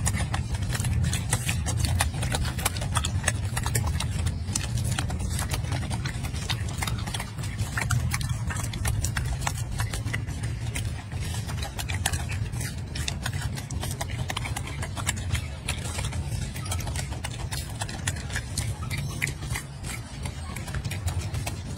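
Golden snub-nosed monkey chewing a mandarin orange: rapid, irregular wet clicks and smacks of its mouth, over a steady low hum.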